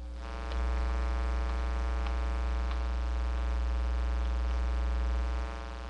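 Steady electrical mains hum with many overtones, under a low rumble that swells about half a second in and drops away near the end, with a few faint ticks.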